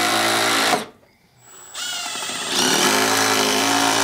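Milwaukee M12 Surge hydraulic impact driver driving screws into wooden roof trusses. It runs, stops about a second in, and starts up again after another second and a half.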